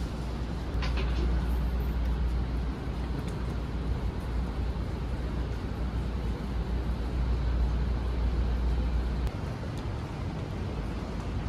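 A steady low rumble of vehicle noise, dropping away abruptly about nine seconds in.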